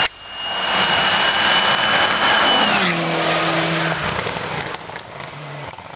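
Rally car speeding past on a wet tarmac road, engine and tyre hiss together. The engine note drops about three seconds in as the car goes by, then the sound fades away.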